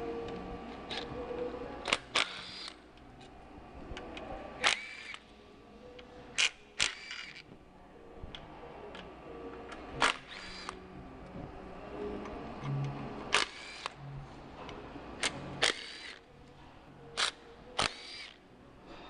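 Hand tools and loose bolts clinking on metal as engine cover bolts are taken out: a dozen or so short, sharp metallic clicks with a slight ring, spaced irregularly.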